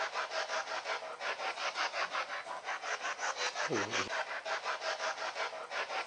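Spirit box sweeping through radio stations: an even chop of static at about six pulses a second, with a brief low sound about four seconds in.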